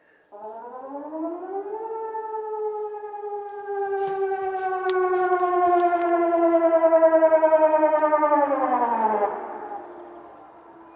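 Civil defence warning siren sounding its annual test: it winds up during the first two seconds, holds a steady tone with a slow pulsing, then winds down near the end.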